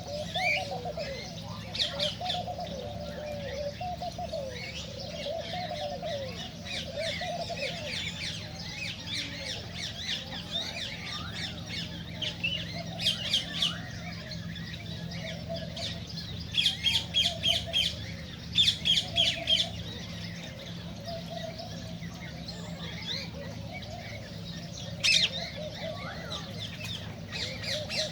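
Cockatiels chirping and whistling continuously, with several quick runs of sharp repeated chirps and a lower warbling whistle in the first half. A steady low hum runs underneath.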